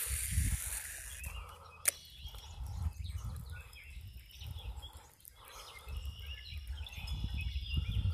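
Wind buffeting the microphone as a gusty low rumble, with faint bird calls in the background and a single sharp click about two seconds in.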